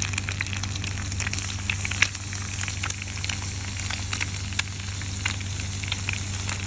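Egg and bok choy frying on a hot grill plate, a steady sizzle with many small scattered pops and crackles.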